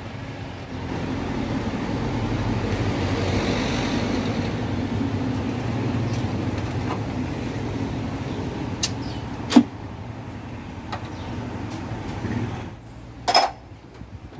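Steady low hum of a vehicle engine running, which drops away near the end, with a few sharp metallic clicks of hand tools around the middle and a louder clank near the end.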